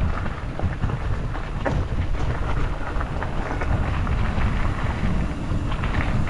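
Wind buffeting the microphone of a camera on a bicycle riding along a trail, a steady low rumble, with scattered crunches and rattles from the tyres and bike on the rough gravel surface.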